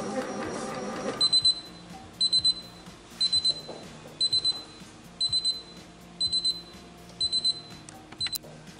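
Moulinex Companion cooking food processor sounding its alert: quick, high-pitched triple beeps repeating about once a second.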